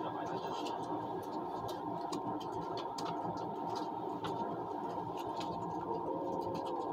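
Steady running noise of an ICE high-speed train heard inside the passenger cabin, with a constant hum and scattered light clicks and scratches.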